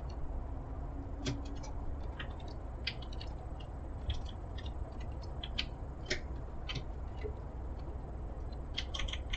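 Light, irregular clicks and taps from working at a digital painting station, stylus and keys, a few a second with a small cluster near the end, over a steady low hum.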